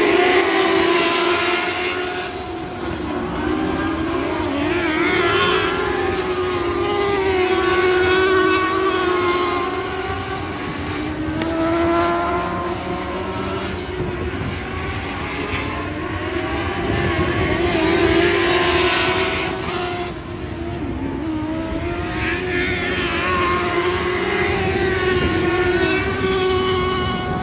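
Lightning sprint cars' motorcycle engines racing on a dirt oval, several high-revving engines at once, their pitch rising and falling through the turns. The sound swells loud every few seconds as the cars pass the grandstand.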